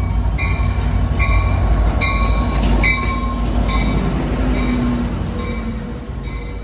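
Amtrak F59PHI diesel-electric locomotive and its bilevel passenger cars rolling slowly into a station past the platform, with a steady low rumble. A bell rings about every 0.8 s and stops a little past halfway.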